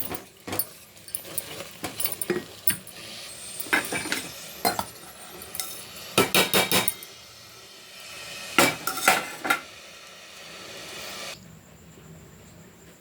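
Metal utensils clinking and tapping against pots and dishes in irregular taps, with two clusters of quick strikes about six and nine seconds in.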